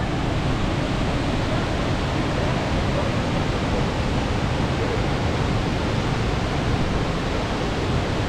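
Bomburu Ella waterfall in heavy flow: a steady, even rush of falling water.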